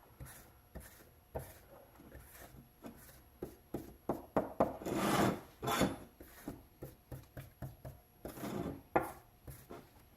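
Blue Dykem layout fluid being applied to a Damascus steel billet: irregular scratchy rubbing and swishing strokes, with longer swishes about five seconds in and again near nine seconds.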